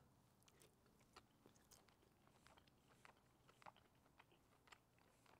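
Faint, soft mouth clicks of a person chewing a bite of seared tuna, irregular and close to silence.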